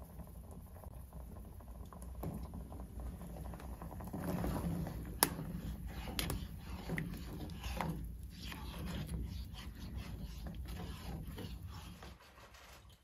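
A spoon stirring soup in a steel saucepan on a wood-burning stove: soft scrapes and small clinks against the pot, with one sharper clink about five seconds in. The sound stops abruptly shortly before the end.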